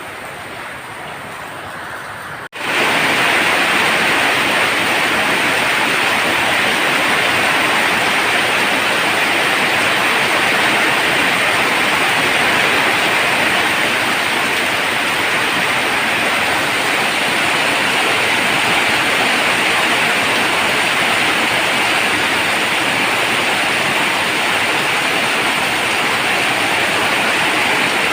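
Heavy monsoon rain drumming on a tin roof, a dense steady hiss. About two and a half seconds in it cuts out for an instant and returns much louder.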